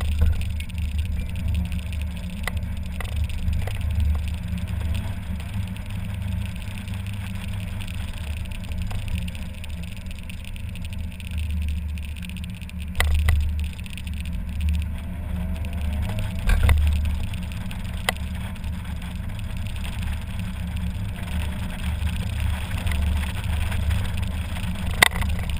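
Mazda MX-5 Miata driving with its top down: the engine runs steadily under a strong, uneven wind rumble over the open cockpit. A few sharp knocks from the road come through now and then.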